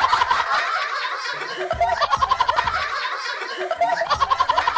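People laughing in quick repeated ha-ha pulses, in bouts at the start, around the middle and near the end.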